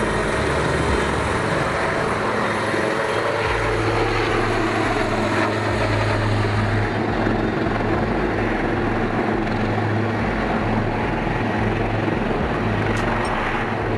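Denel Rooivalk attack helicopter flying past, its rotor and turbine sound loud and steady with a low hum underneath. A faint tone slides down in pitch about five seconds in.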